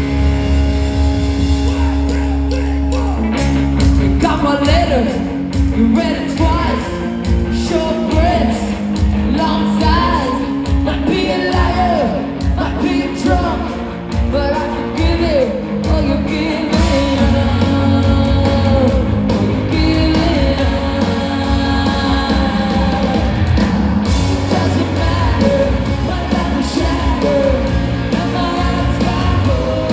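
Live ska-punk band playing electric guitars, bass guitar and drums, with a woman singing lead. A chord is held for the first few seconds, then the drums and vocal come in and the full band plays on.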